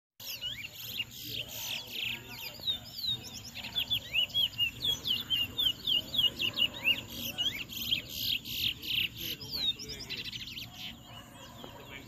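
Caged towa-towa finches singing in a song contest: rapid strings of short whistled notes, each slurring up or down. The notes crowd thickest through the middle and thin out near the end.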